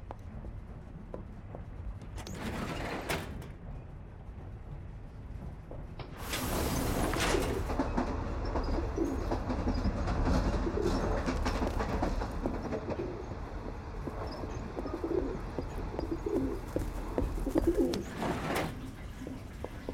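Steady low rumble inside a moving train carriage. About six seconds in a sudden loud rush sets in, and the sound stays louder until shortly before the end.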